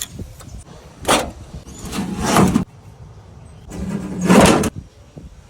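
An engine running in short loud bursts: a brief one about a second in, then two longer bursts of about a second each, the first cutting off suddenly.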